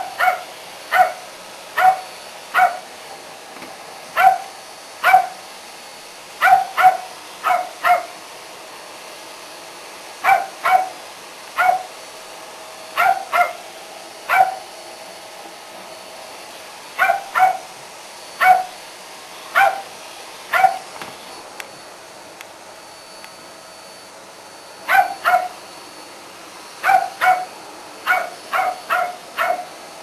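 West Highland white terrier barking: short, sharp barks in quick runs of two to four, repeated again and again, with a pause of a few seconds a little past the middle.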